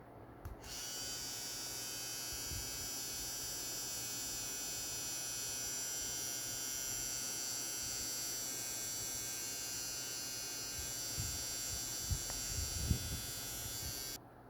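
Cordless rechargeable electric hair trimmer running with a steady, high-pitched buzz, then cutting off suddenly near the end. The owner says that, although it is fully charged, it stops by itself after about ten seconds of running, which he takes for a fault. A few light handling knocks come shortly before it stops.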